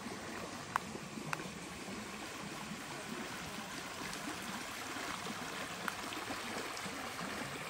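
Steady rushing noise of running water, with a few faint clicks.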